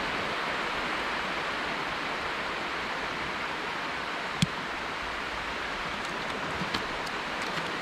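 Steady hiss of light rain falling, with one sharp click about four and a half seconds in and a few faint ticks near the end.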